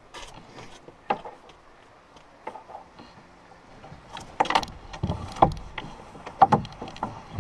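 Hollow knocks and thumps of a canoe hull being carried on someone's shoulders, with footsteps in snow. About four seconds in, the knocks become louder and come more often as the canoe is tipped down a bank.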